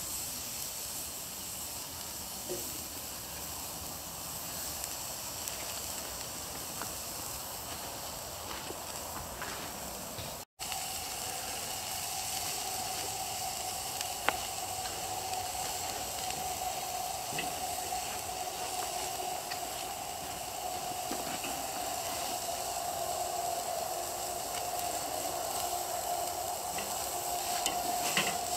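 Venison burgers sizzling on a charcoal grill: a steady hiss, broken once about ten seconds in, with a faint steady tone running alongside after the break.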